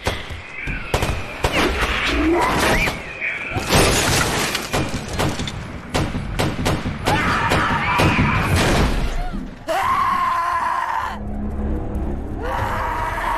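Film soundtrack of a violent night scene: a rapid series of crashes and breaking glass, with screams over dramatic music.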